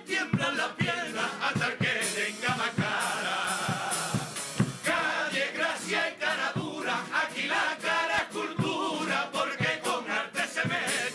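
A chirigota, a group of men singing together in unison, accompanied by a Spanish guitar, with sharp percussion strokes through the song.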